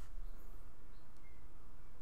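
Room tone: a steady low electrical hum under faint hiss, with a brief faint high chirp just past a second in.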